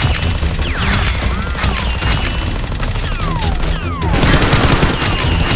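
Rapid automatic gunfire sound effects, a dense run of shots throughout, with several whistling ricochets that slide down in pitch.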